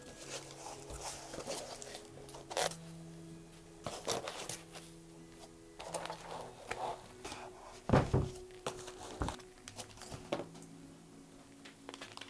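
Handling sounds of unpacking: cardboard box flaps folding open and foam packing rubbing as a counterweight is lifted out, with a few knocks and a thump about eight seconds in. Near the end, a small plastic bag crinkles.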